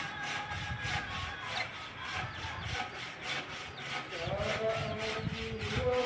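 Steady rhythmic rasping, about three strokes a second, like a hand saw or scraping on wood. From about four seconds in, faint held tones sound alongside it.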